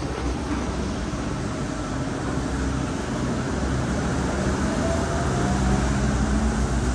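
Sentosa Express monorail train running past the station platform: a steady low rumble with a faint motor whine that rises slightly in pitch about two-thirds of the way through, growing a little louder near the end.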